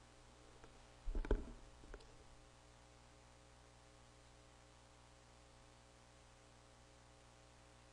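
A short clatter of knocks and clicks about a second in, with one more knock near two seconds, over a faint steady electrical hum.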